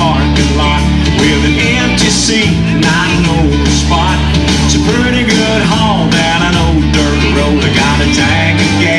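A rock and roll song with guitar and a steady bass line, loud and continuous.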